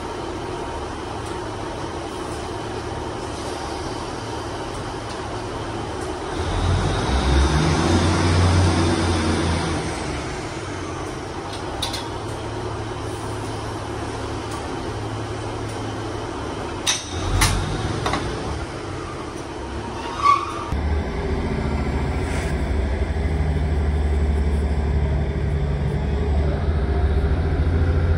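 Diesel train engine heard from inside the carriage, running steadily. About two-thirds of the way through, a steady low drone builds and grows louder as the train pulls out of the station. A few sharp clicks come just before the engine note rises.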